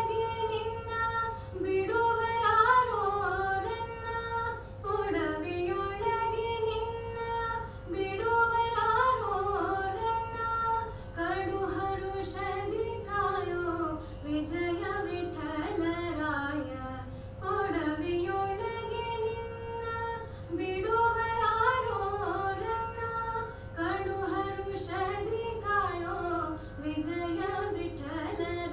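A woman singing a devotional prayer song solo, in short ornamented phrases that glide between notes, over a steady held tone.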